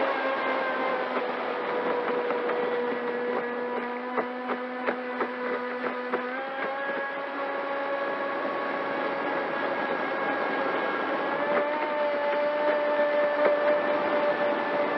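Pro Boat Sonicwake 36 RC boat's brushless electric motor whining at a steady cruising speed, its pitch stepping up a little about six seconds in and again about eleven seconds in as the throttle is eased open. A run of short knocks from the hull meeting the water comes around the middle.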